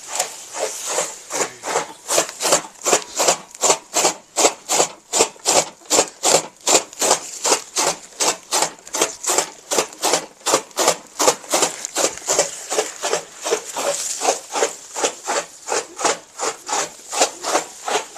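Green fodder being chopped for cattle on a toka, an even run of sharp cutting strokes about three a second.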